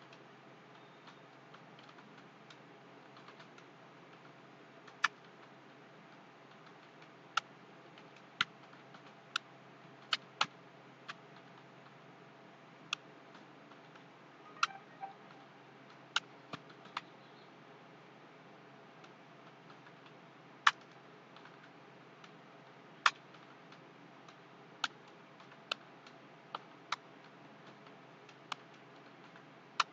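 Computer keyboard keys clicking at irregular intervals during typing practice, a sharp keystroke every second or so with fainter ones between, over a steady low hiss.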